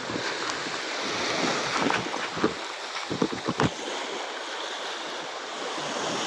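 Steady rush of sea surf with wind on the microphone, with a handful of short knocks and clicks about two and a half to three and a half seconds in.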